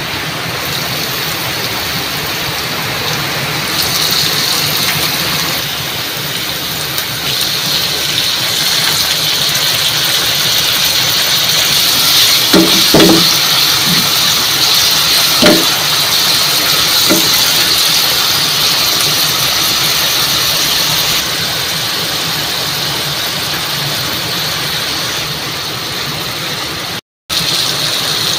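Hot oil sizzling in a steel pan as ginger, onions and tomatoes fry, the sizzle swelling a few seconds in. A few short knocks of a wooden spoon against the pan come around the middle as the food is stirred.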